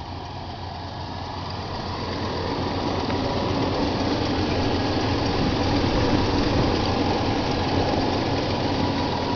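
1985 Dodge truck's engine idling smoothly with the hood open, so smoothly that a nickel stays balanced on the air cleaner. The sound grows louder over the first few seconds, then holds steady.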